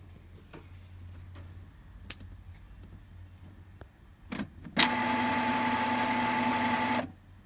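Epson L3150 ink-tank printer's mechanism working through a power cleaning cycle: a couple of knocks, then a motor running steadily for about two seconds before it cuts off suddenly.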